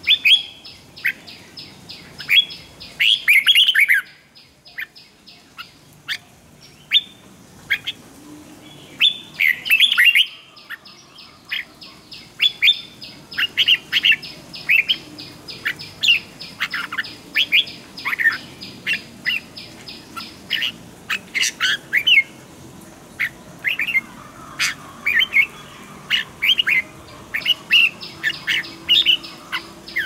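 Red-whiskered bulbuls singing: short, loud warbled phrases repeated every second or two, with a fast, even high ticking running behind them for long stretches.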